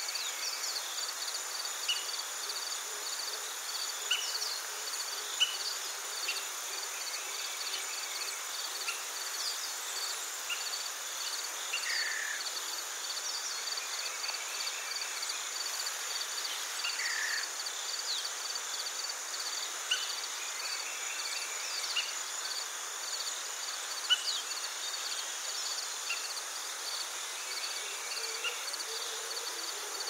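Crickets and other insects chirping in a steady, fast, pulsing chorus. Short sharp calls come every couple of seconds and stand out as the loudest sounds, and two brief falling calls are heard near the middle.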